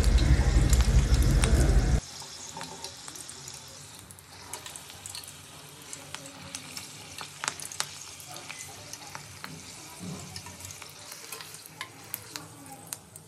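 Washed, slit green chillies deep-frying in hot oil in a kadhai, sizzling and crackling. The sizzle is loud for about two seconds, then drops suddenly to faint, scattered crackles and pops.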